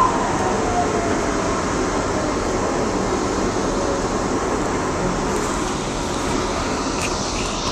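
DART light-rail train running along the track, a steady rumbling rail-and-motor noise heard from the front of the car, with a faint whine that falls in pitch in the first second.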